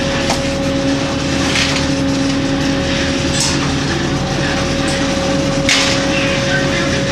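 Fishing boat's engine running steadily with a constant hum, with a few sharp knocks, the loudest nearly six seconds in, as sharks are gaffed and laid on a metal sorting table.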